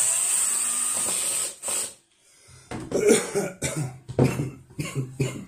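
A man coughing and clearing his throat in several short, rough bursts, after a steady hiss about a second and a half long at the start.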